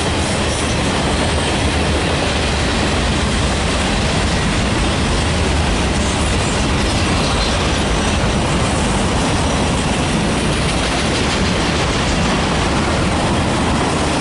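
Railroad cars rolling steadily past, with continuous wheel-on-rail clatter and rumble.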